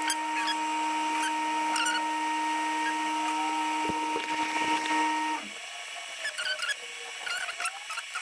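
A steady machine hum with two clear pitches that cuts off abruptly about five seconds in, with faint high chirps and squeaks throughout.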